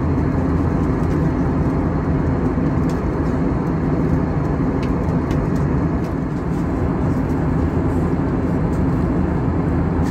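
Steady cabin noise inside an Airbus A321 in flight: an even drone of engines and airflow, heaviest in the low end.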